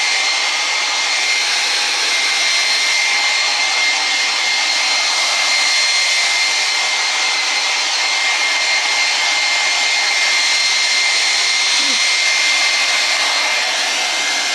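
Handheld hair dryer running steadily on high, a loud even rush of blown air with a high motor whine.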